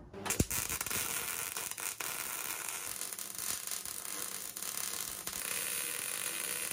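WIA Weldmatic MIG welder arc welding a steel adapter plate onto a wheel hub: a steady crackle of the arc that starts just after a short click near the beginning.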